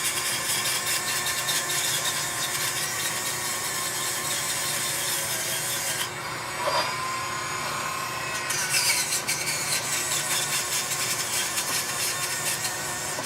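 Small bristle brushes scrubbing back and forth in the routed grooves of CNC-carved wooden lettering, a dense scratchy rasping that clears out the wood fuzz before sealing. The scrubbing eases briefly about six seconds in, then resumes.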